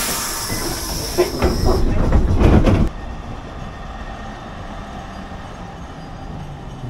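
Streetcar at a stop: a loud hiss of released air, then a run of rattling knocks that cut off sharply about three seconds in. After that, quieter steady street noise with a low rumble.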